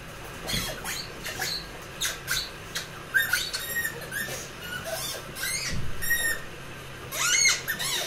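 Yellow spiky rubber squeaky ball squeaking as a Labrador mouths it: short, high-pitched squeaks, a pair about three seconds in and the loudest cluster near the end, with claws clicking lightly on the tiled floor between them.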